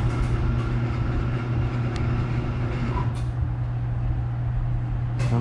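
A steady low machine hum from a running motor or engine, with a faint click about two seconds in.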